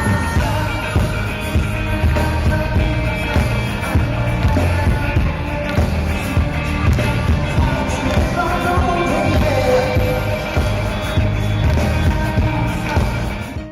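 Live Korean pop concert music played loud over an arena sound system, with a steady pounding bass beat and singing. It cuts off abruptly at the end.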